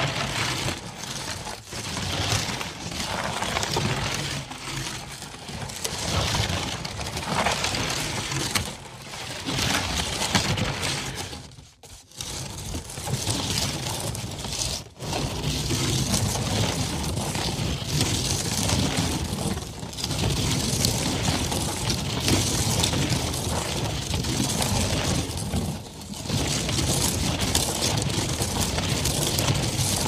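Wheeled catapult rolling along a dirt road: the wheels crunch and grind over the ground continuously, over a low rumble. The sound drops out briefly about twelve and fifteen seconds in.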